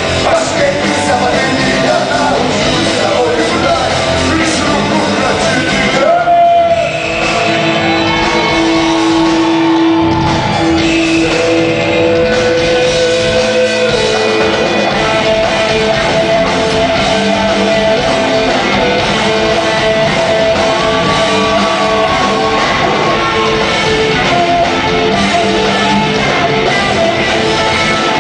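Rock band playing live: electric guitars, drums and a singer, heard through the reverberation of a large concert hall.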